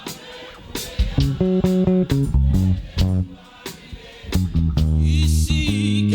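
Live worship band playing: bass guitar and guitar over drums, with a sung note near the end.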